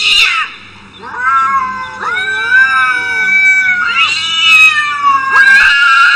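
Domestic cats caterwauling in a face-off: loud, long, drawn-out yowls that waver and bend in pitch, one after another with short breaks. These are the threat yowls of two cats squaring up to fight.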